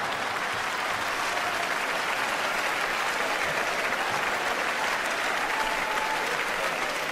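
Large theatre audience applauding, steady and unbroken.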